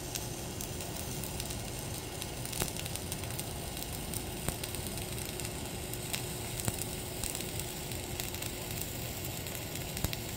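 Flux-cored arc welding arc crackling and sizzling steadily, with a few sharper pops now and then.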